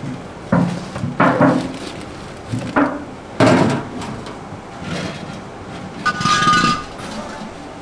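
A series of knocks and thuds, several in the first half, then a brief ringing tone about six seconds in.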